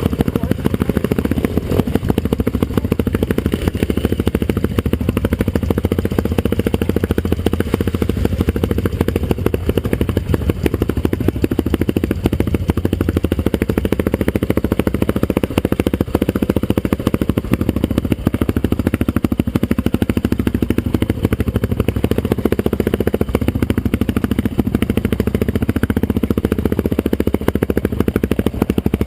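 Off-road trail motorcycle engine running steadily while being ridden.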